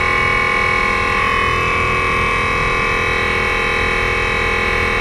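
A7009 mini 12/24 V air compressor running steadily, a constant electric-motor hum with several steady tones over a noisy base. It is pumping up a 9-litre air tank, the pressure climbing past 7 kg/cm² toward its 8 kg/cm² cut-off.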